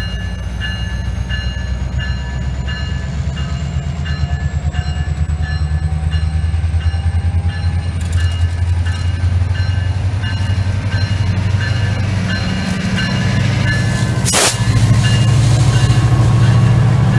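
Virginia Railway Express MP36PH-3C diesel locomotive pulling a commuter train, its engine rumbling louder as it comes close and passes. A bell rings in steady strokes throughout, and there is one sharp crack about fourteen seconds in.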